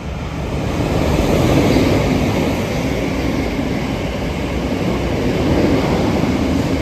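Passing train: a loud, steady rush of wheel and rail noise that swells over the first second, holds, then begins to ease near the end.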